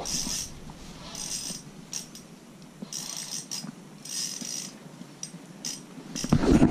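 Spinning reel ticking and whirring in about five short bursts while a big hooked fish is played through the ice hole. A louder burst of handling noise comes near the end.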